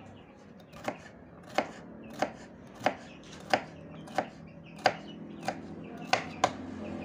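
Kitchen knife chopping bitter melon on a wooden cutting board: about ten sharp, evenly spaced chops, roughly three every two seconds.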